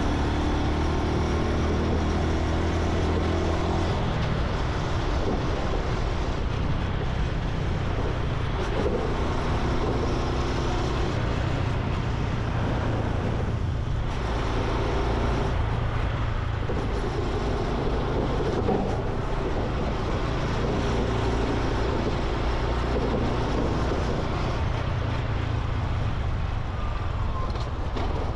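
Honda Super Cub C125's single-cylinder four-stroke engine running under way, its note rising and falling several times as the bike speeds up and shifts.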